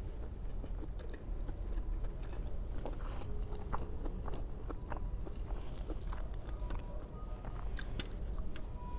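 Close-miked chewing and mouth sounds of a person eating veg steamed momos, with many short scattered clicks.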